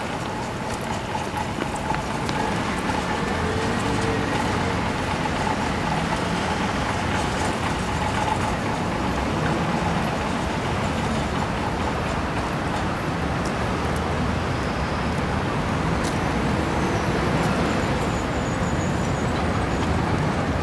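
Steady city road-traffic noise, with a faint steady whine that fades out about six seconds in.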